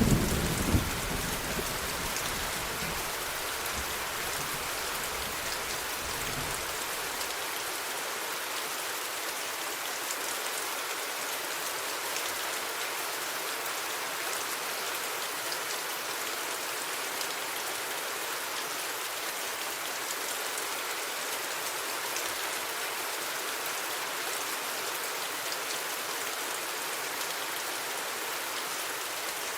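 Steady rain falling, with a thunderclap in the first second whose low rumble dies away over the next several seconds.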